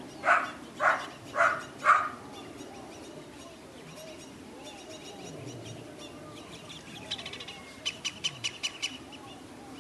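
Belgian Malinois puppy barking four times in quick succession, about half a second apart. Later come birds chirping, with two quick runs of sharp high chirps near the end.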